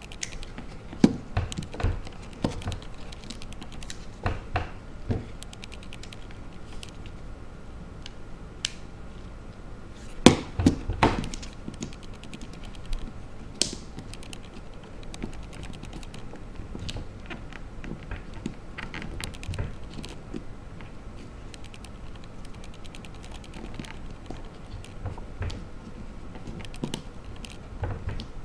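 Irregular small clicks and taps of hands and small tools working on the opened iPhone 3GS, pressing its ribbon-cable connectors back into place, with a cluster of louder knocks about ten seconds in.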